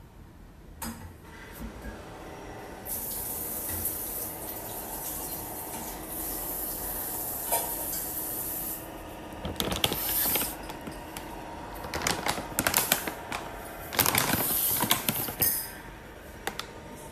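A dog-food bag being handled: a steady hiss for several seconds, then bursts of crackling and rustling from the packaging in the second half.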